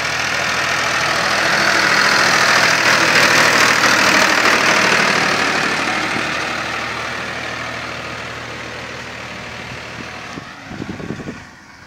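Farmtrac 30 tractor's diesel engine running steadily under load as it pulls a cultivator through the soil. It is loudest a few seconds in as the tractor passes close, then fades as it drives away.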